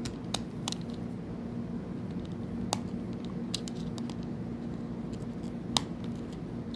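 Sparse, irregular small clicks and scrapes of a screwdriver working at the handle screw of a Daiwa fishing reel, a screw that it is not managing to turn. A steady low hum runs underneath.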